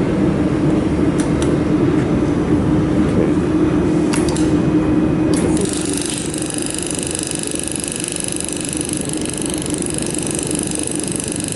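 Laser welding machine at work: a steady machine hum with a few clicks, then about five and a half seconds in a high, steady hiss with several whining tones starts and runs about seven seconds.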